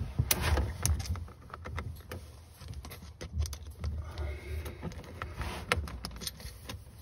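Scattered small metallic clicks and scrapes of a metal conduit strap and screwdriver being handled and positioned against the underside of a cabinet, over a low handling rumble.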